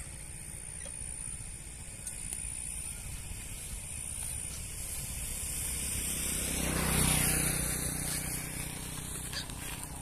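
Steady outdoor noise with a low rumble and hiss that swells about seven seconds in and then eases off.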